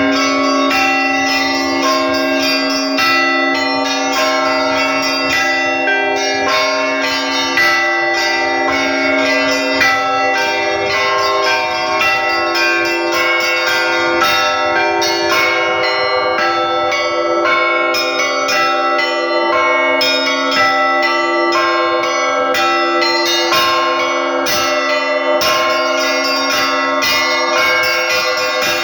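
Russian Orthodox church bells rung by one bell ringer: a continuous, rapid peal of strikes on several bells over the held, ringing tones of the lower bells.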